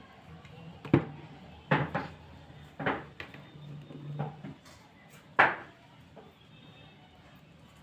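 About seven sharp knocks and taps of small craft items being picked up and set down on a hard work surface, loudest about a second in and again near the end of the run.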